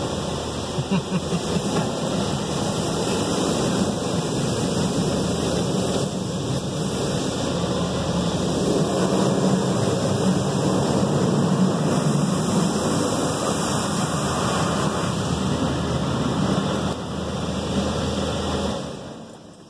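Automatic car wash spraying water and foam over the car, heard from inside the car: a loud, steady rush of spray with a low hum beneath it, which drops away sharply near the end.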